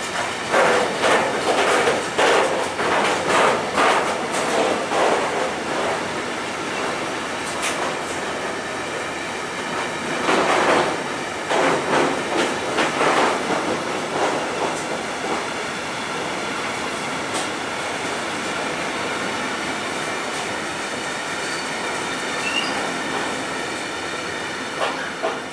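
Intermodal freight train of container and tank-container wagons rolling past at speed. The wheels clatter over the track, loudest in bursts of clickety-clack in the first few seconds and again about ten to fourteen seconds in, then settle to a steadier rumble. The noise begins to fade as the last wagon goes by near the end.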